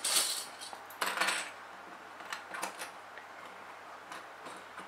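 Fabric rustling as it is handled, then several light clicks as plastic sewing clips are clipped onto the fabric edge and set against the wooden table.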